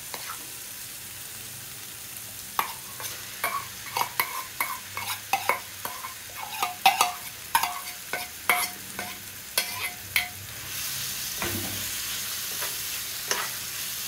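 A metal spoon scrapes and clicks against a steel bowl and a nonstick frying pan as boiled potato is scooped in and stirred into a frying vegetable mixture, with a soft sizzle underneath. Near the end a steady frying hiss comes up.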